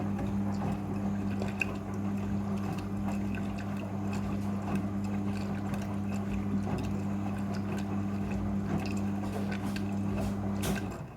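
Front-loading washing machine in its rinse, a steady hum of its pump or valve with water rushing and splashing inside the drum, cutting off near the end.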